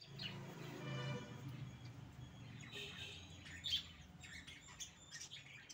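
Pomeranian puppies squeaking at their food bowl: short, high-pitched chirping squeaks, coming thickly from about halfway through. A low drone fills the first second or so.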